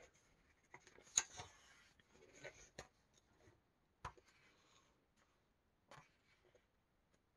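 Faint rustling of paper pages being turned by hand in a paperback coloring book, with a few soft ticks.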